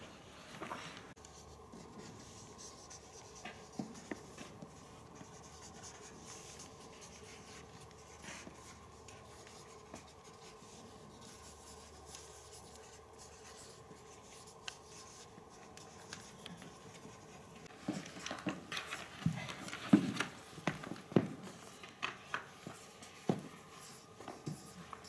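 Marker pens scratching on a large sheet of paper, over a faint steady room hum. In the last several seconds, a run of sharp irregular knocks and taps.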